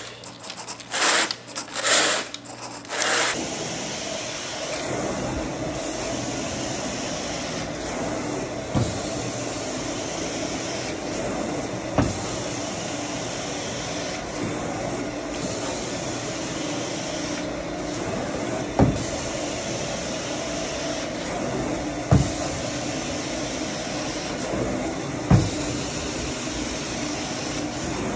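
A few rough scraping strokes of a carpet rake through carpet pile for the first three seconds, then the steady rushing drone of a carpet-cleaning extraction wand sucking water from the carpet. Short low thumps come every few seconds as the wand is worked.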